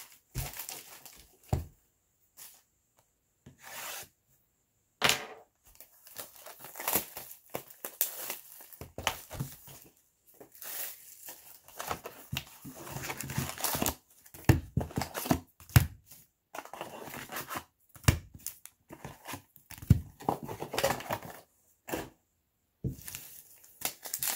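A sealed box of 2020 Bowman baseball cards being unwrapped and opened by hand, its foil card packs taken out: tearing and crinkling of wrapping and foil with small taps of cardboard, on and off with short pauses.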